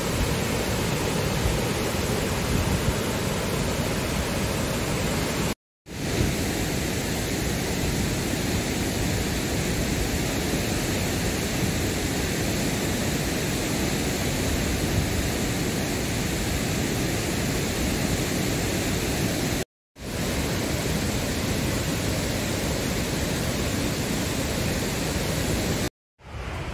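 Water rushing over a river weir: a loud, steady roar of falling water. It cuts out briefly twice, about 6 and 20 seconds in, and again near the end.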